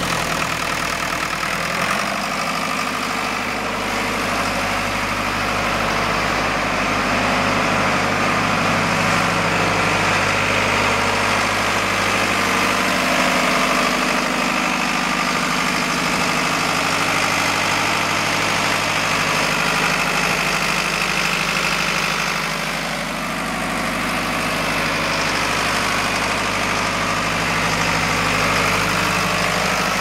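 Deutz four-cylinder diesel engine of a trailer-mounted concrete pump, running steadily.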